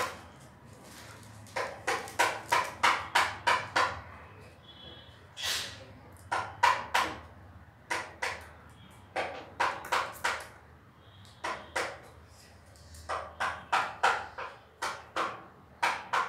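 A man speaking in quick, clipped syllables in short phrases with pauses between them, in a small room.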